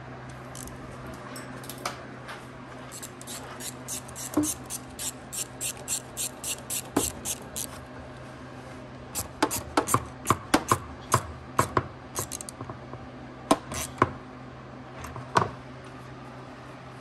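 Screwdriver tightening the metal hose clamp on an AEM cold air intake's cone filter: a quick run of small sharp clicks, about three to four a second, then louder, irregular knocks of tool and parts being handled and a few single knocks. A steady low hum runs underneath.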